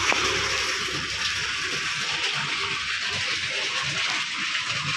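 Aerosol can of rat repellent spraying onto a scooter's wiring and cables, giving a steady hiss.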